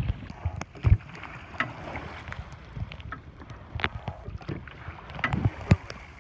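Ocean rowing boat under oars: a run of irregular sharp knocks as the oars work in their rowlocks through the strokes, over a low water-and-hull haze. The loudest knocks come about a second in and near the end.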